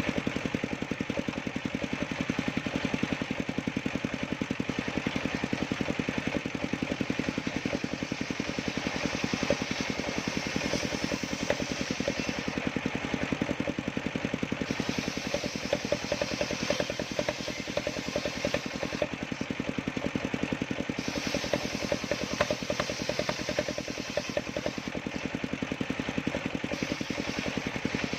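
Small engine of a homemade sawmill running steadily with a fast, even firing pulse.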